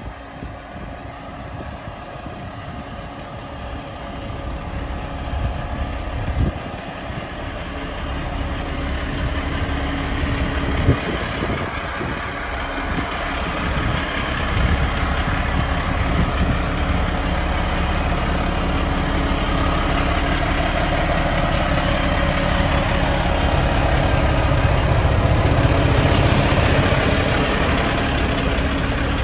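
Volvo B420R coach's rear-mounted diesel engine idling steadily, growing louder toward the rear of the bus. Two brief knocks in the first half.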